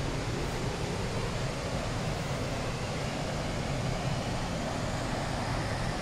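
Waterfall on the River Clyde in heavy flow, a steady, unbroken rush of falling water, deepest in the low end.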